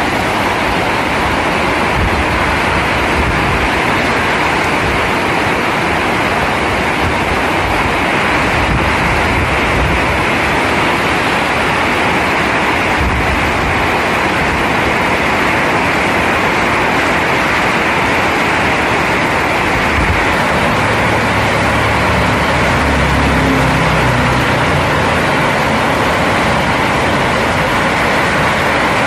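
Heavy rain falling as a steady, loud hiss. A low rumble swells for a few seconds about two-thirds of the way through.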